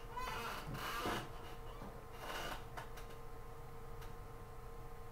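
Low room noise with a steady electrical hum, two soft rustling noises in the first three seconds, and a few faint computer mouse clicks.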